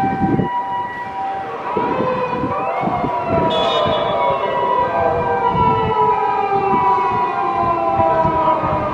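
Japanese ambulance's two-tone hi-lo siren alternating steadily, joined about a second and a half in by a police car's foot-pedal siren that rises and then slowly winds down in pitch over several seconds.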